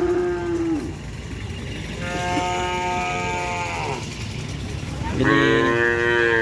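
Young calves bawling: three long calls, each dropping in pitch as it ends, the last and loudest starting about five seconds in.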